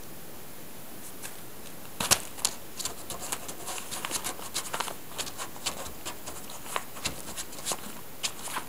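Kittens' paws scrabbling on newspaper: irregular crinkling and scratchy clicks, starting about two seconds in.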